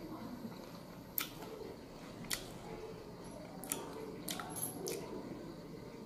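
Someone eating ber (Indian jujube) fruit: quiet chewing and mouth sounds, with about half a dozen short, sharp clicks scattered through.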